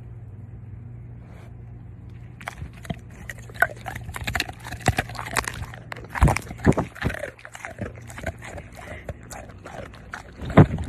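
A dog making short noises among a busy run of clicks and knocks, over a steady low hum. Two loud knocks stand out, one about six seconds in and one near the end.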